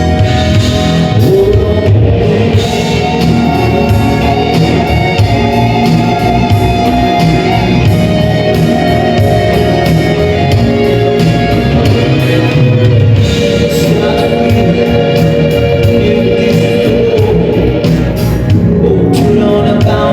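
A live band playing loud, continuous music, with a singer's voice over it.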